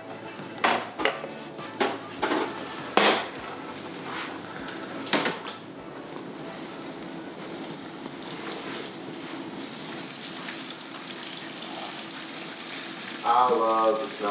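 Knocks and clatter of utensils against a mixing bowl as fish pieces are tossed in cornmeal breading, then hot olive oil sizzling in a frying pan as the breaded pieces go in, from about halfway through. A voice briefly near the end.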